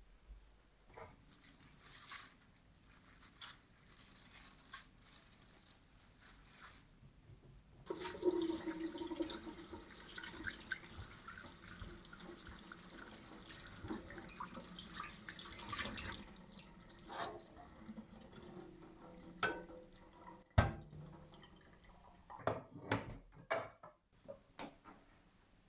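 Water running from a sink tap for about eight seconds, with scattered clicks and knocks of things being handled before and after.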